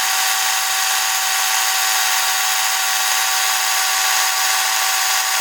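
Battery-powered chainsaw (ReliaRoads 40-volt) running at a steady full speed, its electric motor and chain giving one constant high whine.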